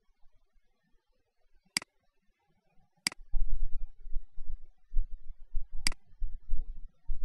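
Three sharp, single computer mouse clicks, spread a second or more apart. From about three seconds in, an irregular low rumble sits under them, louder than the clicks on the meter.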